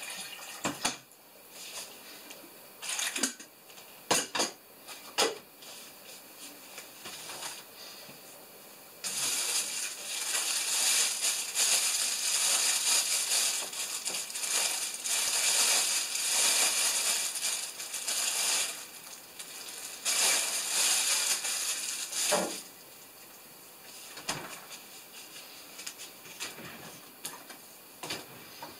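Kitchen handling sounds: a few knocks and clatters of dishes and cupboard items in the first several seconds, then a plastic package crinkling and rustling in the hands for about ten seconds from around nine seconds in, with a short break, until about twenty-two seconds in, then quieter scattered handling.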